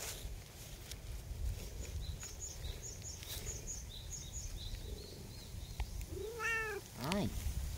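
A cat meowing twice near the end: a longer meow that rises and falls, then a short one. Faint high bird chirps repeat in the background over a low wind rumble.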